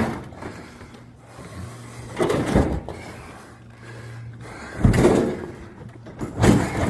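Plastic refrigerator drawers and shelf parts clunking and sliding as they are handled, a few separate knocks spread through the few seconds.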